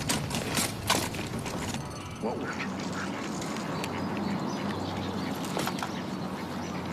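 A few sharp knocks in the first couple of seconds, then ducks quacking.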